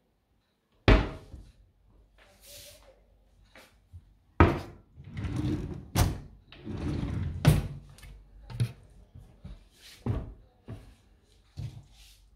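Kitchen cabinet doors and a drawer being opened and shut: a sharp knock about a second in, a drawer sliding out and back with scraping runs in the middle, then more knocks and clicks of doors and hinges.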